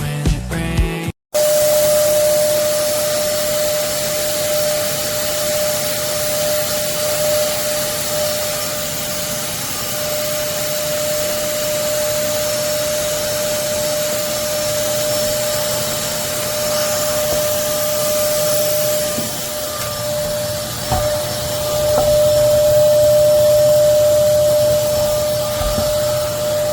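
Short burst of music that cuts off about a second in, then a Hoover PortaPOWER lightweight vacuum cleaner running steadily, its motor rushing with a high steady whine. It gets louder for a few seconds near the end.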